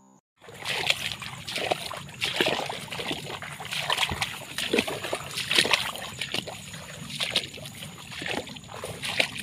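Irregular splashing and sloshing in shallow water, starting about half a second in and continuing in uneven bursts.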